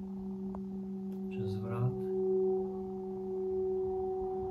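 Singing bowl ringing, a steady sustained hum of a few pure tones that swells slightly midway.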